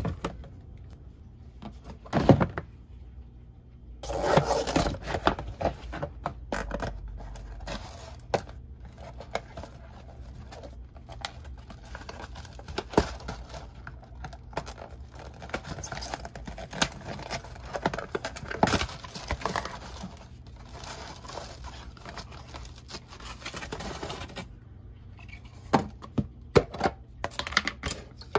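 Takeout food packaging being handled and unpacked: a paper carrier bag and cardboard boxes rustling, a paper packet being torn open, and small knocks of plastic containers and boxes on a table, with a loud knock about two seconds in and a few more near the end.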